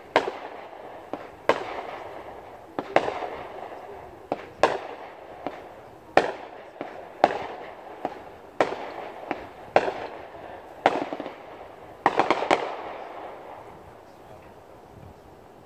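Fireworks shells bursting in a steady series, a sharp bang about every second and a half, each trailing off as it echoes. Near the end several bursts come in quick succession, then the bangs stop.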